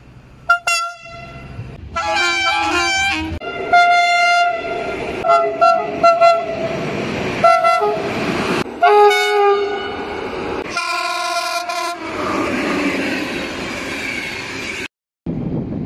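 Train horns sounding again and again in short clips cut one after another, each blast a steady chord that stops abruptly at the cut, with rail running noise between them. Near the end a stretch of train running noise cuts off to silence for a moment.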